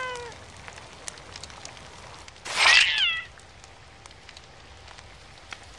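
A cat meowing twice: a short meow right at the start, then a louder, rougher meow about two and a half seconds in.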